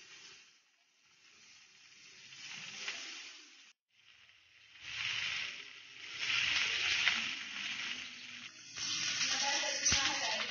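Chicken and vegetable skewers sizzling on a hot flat griddle, a steady hiss that breaks off briefly then grows louder from about halfway through. A sharp knock near the end as the skewers are handled.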